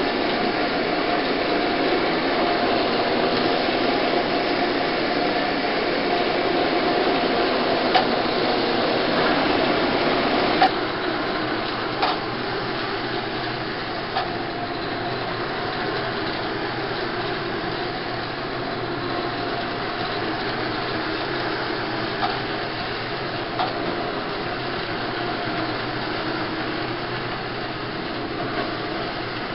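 Rotary hot-water extraction machine running steadily, its spinning head and vacuum suction rinsing and extracting the carpet. A few light clicks sound, and the noise drops a little about ten seconds in.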